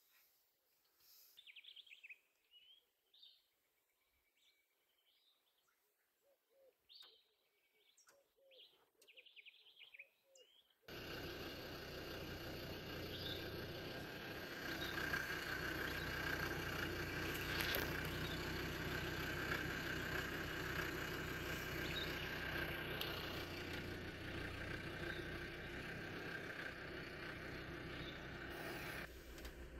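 Small birds chirping faintly for about the first ten seconds. Then a safari vehicle's engine comes in suddenly and runs steadily as the vehicle drives along the track, dropping lower near the end.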